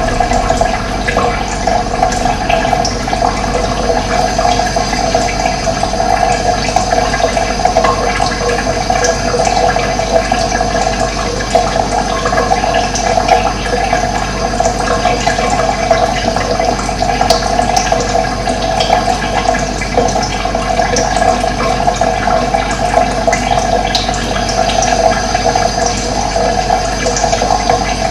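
Running water flowing steadily, an even, continuous rush with no breaks.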